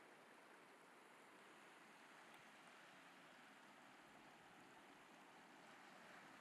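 Faint, steady wash of ocean surf on a beach.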